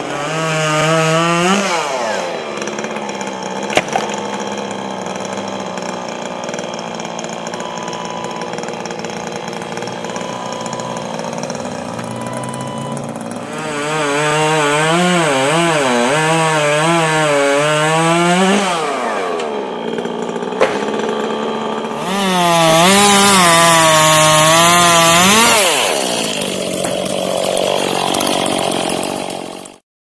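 Stihl chainsaw cutting limbs: the engine runs steadily at lower speed between cuts and revs up three times under load, its pitch wavering as the chain bites into the wood.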